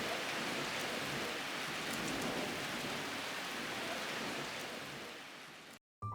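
Steady rain falling, an even hiss that fades slightly near the end and then cuts off abruptly.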